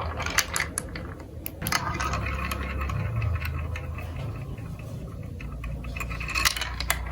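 Marbles rolling and clicking through a plastic marble run: a steady rolling rumble with irregular clicks and rattles, busiest near the start and again near the end.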